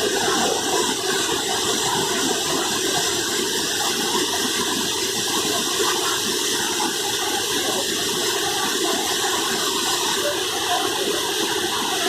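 Chitrakot Falls, a wide waterfall on the Indravati River, pouring with a steady, unbroken rush of falling water.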